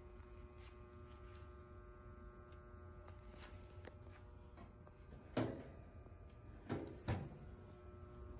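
Low steady hum with a few faint clicks, then three sharp knocks: one about five seconds in and two close together near seven seconds.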